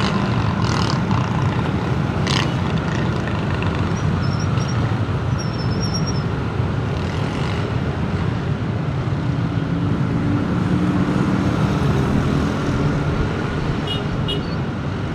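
Outdoor street ambience recorded through a Comica CVM-VM10 mini condenser microphone: a steady rumble of road traffic, with a few faint high chirps about four to six seconds in and a vehicle's engine hum standing out in the second half.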